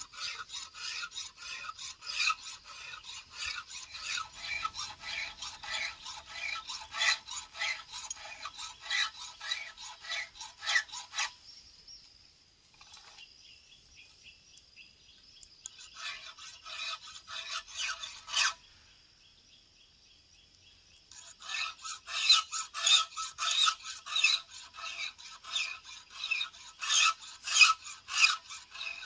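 Steady strokes of a file sharpening the cutters on a Stihl MS 070 chainsaw chain, a rasping scrape about two to three times a second. The filing stops for several seconds partway through, with one short run of strokes, then starts again.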